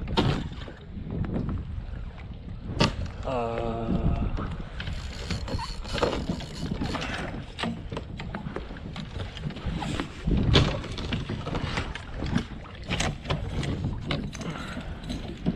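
Kayak being bumped and rocked, with many irregular knocks on the hull and water sloshing, under steady wind noise on the microphone.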